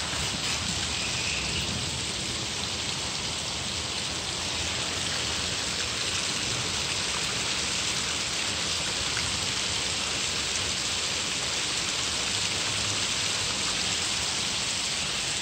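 Steady rain falling during a thunderstorm, an even hiss with no thunderclaps.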